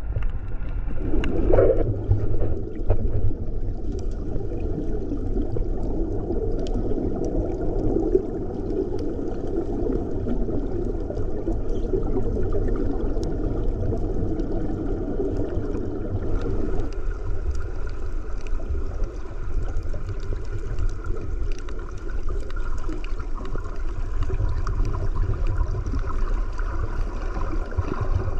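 Muffled underwater rushing and gurgling picked up by a camera in a waterproof housing as it moves through the water, over a steady low rumble with scattered faint clicks. The rushing eases a little past halfway.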